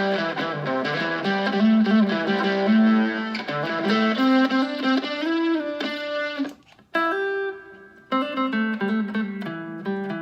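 Fender Stratocaster electric guitar playing a melodic line of single notes through effects. About six and a half seconds in the playing stops briefly, then one note rings out and fades before the line picks up again.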